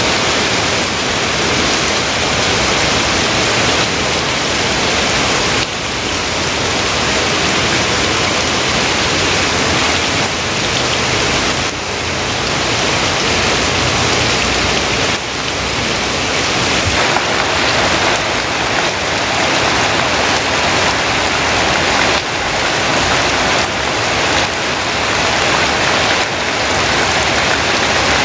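Heavy rain falling, a loud steady hiss of rain.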